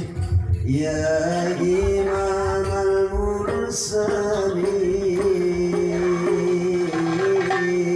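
Male voice singing a long, ornamented sustained line in a hadroh devotional song, with frame drums beneath.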